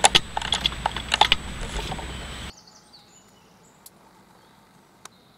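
A steady hiss with a run of sharp clicks and ticks, which stops abruptly about two and a half seconds in. After that comes faint, quiet woodland background with a couple of soft ticks.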